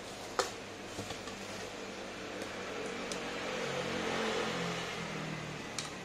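A motor vehicle passing close by, its engine swelling and then fading over the steady hum of an electric fan. There are sharp clicks about half a second in and near the end, from metal utensils against a steel bowl.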